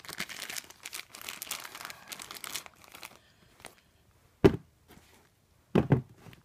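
Thin plastic zip bag holding spare shoelaces crinkling as it is handled, for about three seconds; then a few dull thumps, one about halfway through and two near the end.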